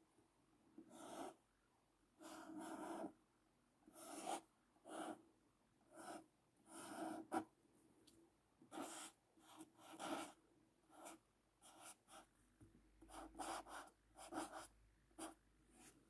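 Felt-tip pen drawn across paper in a series of short, irregular strokes, each a brief scratch of the tip, while Chinese characters and pinyin are written by hand.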